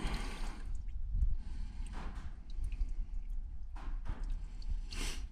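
Used engine oil draining out of a removed spin-on oil filter as it is tipped over: a short trickle at the start, then scattered drips.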